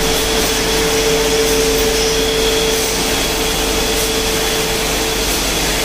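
Machinery on a sauce-bottle packing line running: a steady, even whir with a constant mid-pitched hum.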